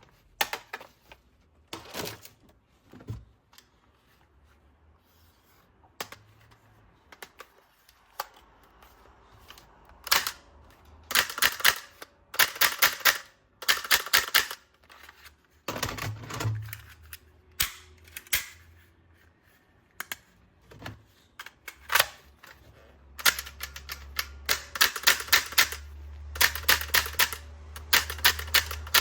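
Plastic toy gun mechanism clicking: a few single clicks, then repeated bursts of rapid clicking, each about a second long, from about ten seconds in.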